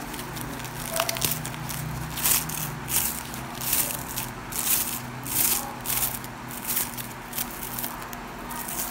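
Foam packing wrap rustling and crinkling in irregular bursts as it is unrolled and opened by hand. A steady low hum runs underneath.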